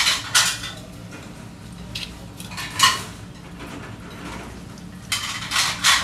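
A long fish knife scraping along a flounder's bones and against a plastic cutting board while the fillet is cut free, in three short strokes: one at the start, one about three seconds in and one near the end.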